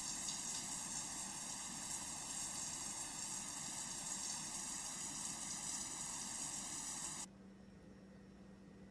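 Water running steadily from a shower or tap, a continuous hiss of spray, which cuts off abruptly near the end and leaves a faint steady hum.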